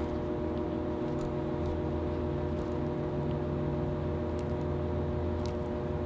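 Steady background hum made of several constant tones, like a fan or machinery running. A few faint light clicks from hands handling the wire and connector sound over it.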